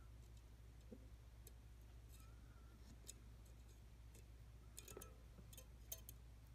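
Near silence: a low steady hum with scattered faint clicks and ticks from handling wires in a soldering iron's opened plastic battery housing, a few more of them together about five seconds in.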